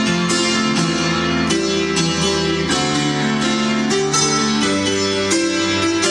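Instrumental piano music: a grand piano played with sustained chords under a melody.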